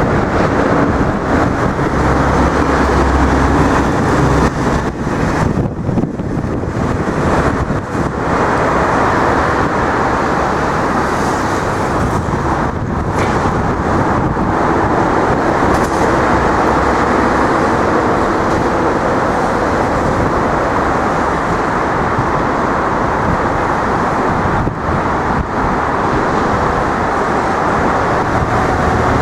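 Steady, loud vehicle noise: an even, dense rumble with no distinct events standing out.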